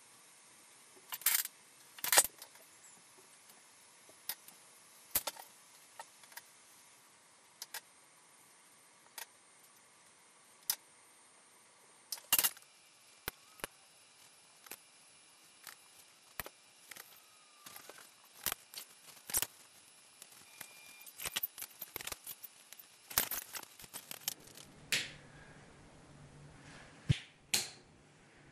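Irregular sharp clicks and taps, scattered a second or more apart, a few of them loud.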